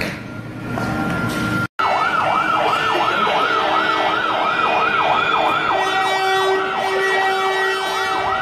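An emergency-vehicle siren in a fast yelp, rising and falling about three times a second. It starts at a sudden cut about two seconds in; before the cut there is only steady street noise.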